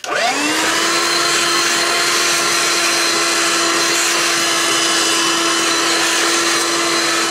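Small vacuum cleaner switched on, its motor whine rising quickly to a steady pitch, then running steadily as it sucks plastic shavings off a cutting mat.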